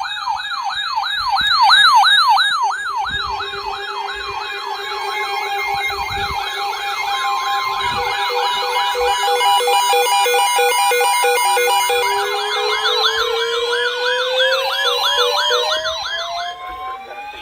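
Several electronic emergency-vehicle sirens sounding together on a fast yelp, their pitches sweeping up and down about two to three times a second. From about two-thirds of the way in, a lower siren winds steadily up in pitch.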